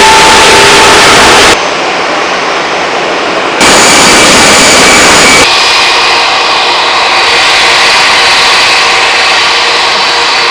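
Airliner jet engines running loud, a roar with steady high whining tones, in several short segments that cut abruptly into one another: one change about a second and a half in, another about two seconds later, and a third about two seconds after that, the last segment running steadily to the end.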